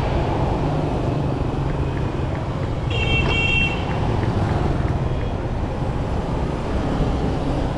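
Road traffic and a steady engine hum while moving along a city street, with one short, high horn toot about three seconds in.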